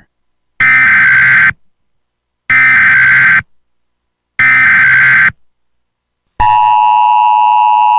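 Emergency Alert System data header: three harsh buzzing bursts, each about a second long with about a second between them, followed near the end by the steady two-tone EAS attention signal.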